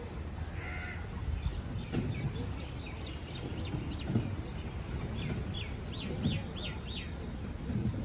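A bird calling in a run of short, repeated, down-slurred calls, the four loudest coming in quick succession about six to seven seconds in, over a steady low rumble.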